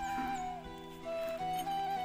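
Background music: a single melody line of long held notes over a steady drone.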